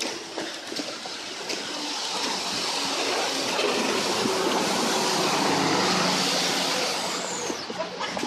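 Road vehicle passing close on a wet road: tyre hiss and engine noise swell to a peak about five to six seconds in, then fade away.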